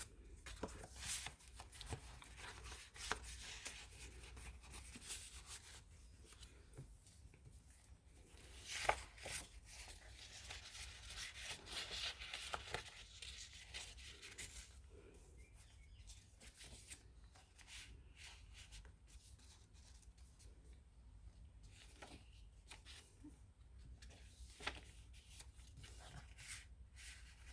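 Faint paper handling: light rustles and small taps as journal pages, cards and envelopes are turned and moved, with a longer rustle about ten seconds in.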